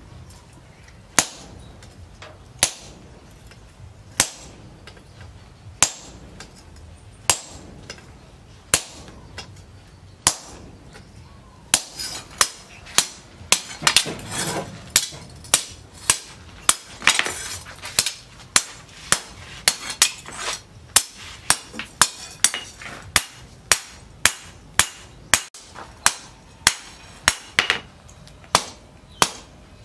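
Hand hammer striking a red-hot leaf-spring steel machete blade on a round steel post anvil: sharp metallic blows with a short ring, hot forging of the blade. The blows come about a second and a half apart at first, then quicken to about two a second from about twelve seconds in.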